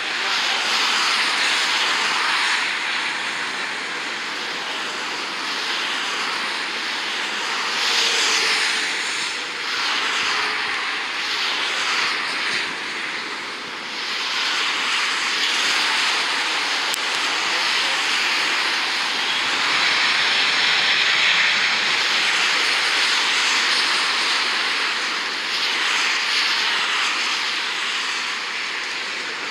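Twin rear-mounted turbofan engines of an Embraer ERJ regional jet landing and rolling out on the runway: a steady rushing jet noise that swells and eases a little.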